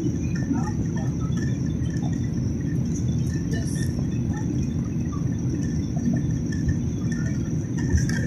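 Steady jet engine and airflow noise inside an airliner's cabin during the climb after takeoff: a deep even rumble with a thin, steady high whine above it.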